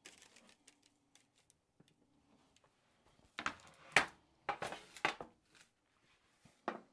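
Freshly baked scones being lifted by hand off a baking tray and set down on a wire cooling rack: a string of soft scrapes and light clicks against the rack and tray, busiest about halfway through, with one more near the end.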